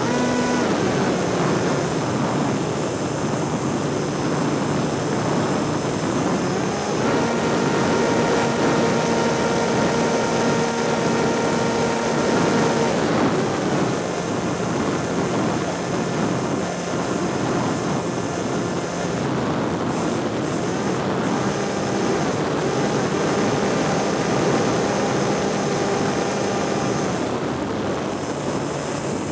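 Propeller aircraft's engine running, heard from a camera on board under a steady rush of wind noise. Its steady note steps up and down in pitch several times, sitting highest for several seconds near the middle.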